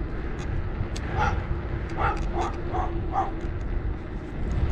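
Dogs barking, several short barks between about one and three and a half seconds in, over a low rumble of wind and tyre noise from the moving bicycle.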